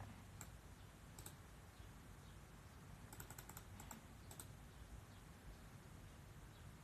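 Near silence with a low room hum and a few faint, scattered clicks.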